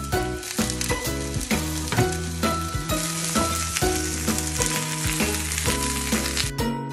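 Chicken breast and eggplant pieces sizzling as they fry in oil in a frying pan. The sizzle cuts off near the end.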